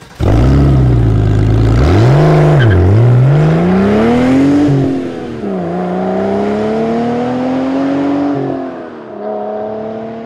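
Car engine revving. It holds steady for about a second and a half, blips down and up twice, then climbs; the revs drop about five seconds in, climb slowly again and fall back near the end.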